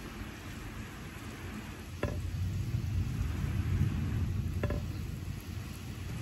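Steady rain, with a low roll of thunder swelling about two seconds in and fading away. Two sharp drips ring out over the rain, one as the rumble starts and one as it fades.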